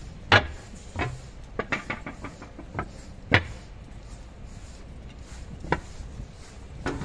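Wheels of an MI79 electric multiple unit knocking over rail joints and points: irregular sharp knocks and clicks, the loudest about a third of a second in and again about three seconds later, with a quick run of clicks around two seconds in.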